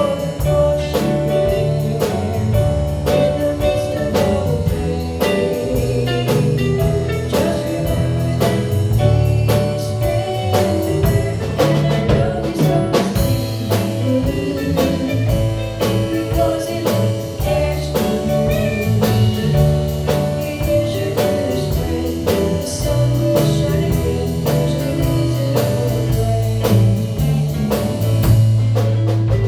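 Live gospel song with band accompaniment, a drum kit keeping a steady beat over a bass line, with singing.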